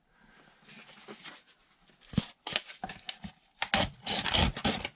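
Serrated knife blade of a Ganzo G302-B multitool sawing through cardboard: a faint rub at first, then a rapid run of rasping, tearing strokes through the second half.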